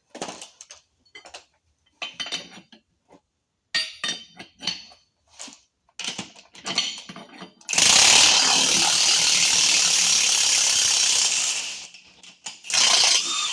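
Metal tools and parts clinking and being handled. Then, about eight seconds in, a power tool runs steadily for about four seconds, with a second short burst near the end, as the wheel hub is being taken off.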